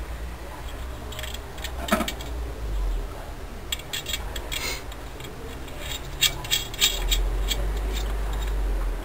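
Small metallic clicks, clinks and scrapes in scattered clusters as nuts and spring washers are handled and fitted by hand at the exhaust of a 66cc two-stroke bicycle engine.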